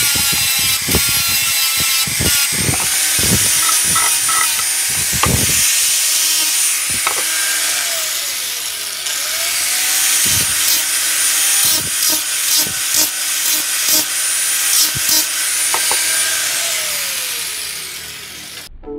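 Electric grinder working a large curved steel blade: a continuous harsh grinding with a high whine, many short knocks and clicks as the blade is moved against the wheel, and the pitch sagging and recovering a few times under the load. It cuts off suddenly near the end.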